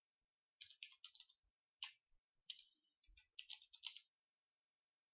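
Faint typing on a computer keyboard: quick runs of keystrokes with short pauses between them, stopping about four seconds in.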